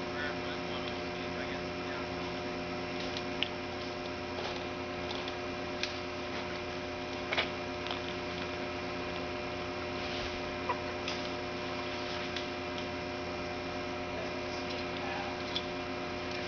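An engine idling steadily, a constant hum with several even tones, with a few light clicks or knocks scattered through it.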